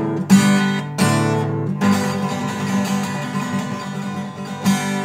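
Steel-string acoustic guitar strummed, the closing chords of a song with no singing: a few strums, then one chord left ringing and fading for about three seconds, with another strum near the end.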